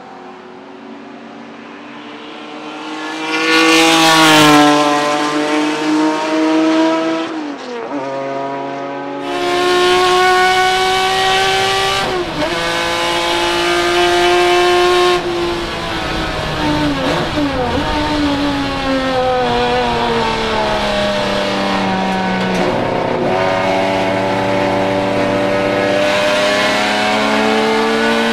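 Ford Capri 3100 RS touring car's naturally aspirated Ford-Cosworth V6 racing engine at full throttle. It first closes in and passes loudly about four seconds in. Then it is heard from inside the cockpit, its revs climbing and dropping through gear changes.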